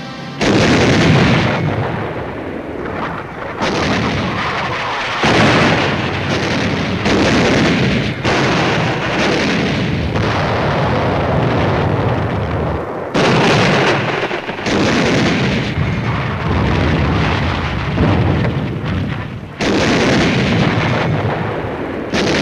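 Heavy naval guns firing in a shore bombardment: about nine loud blasts, each starting suddenly and rumbling away, a new one every one to five seconds.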